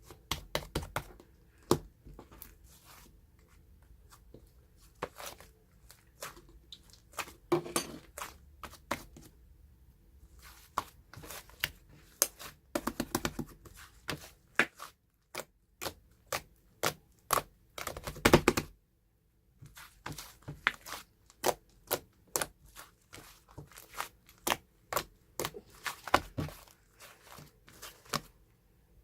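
Irregular series of sharp crunches and crackles close to the microphone, in quick clusters with short pauses, the loudest cluster about two-thirds of the way through.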